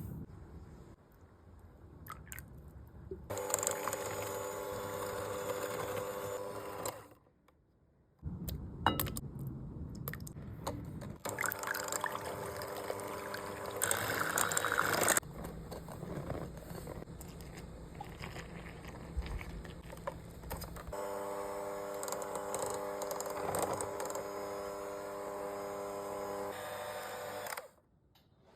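Electric mixer motor running with a steady whine while beating cake batter, starting and stopping abruptly several times, with clattering and handling noises in between.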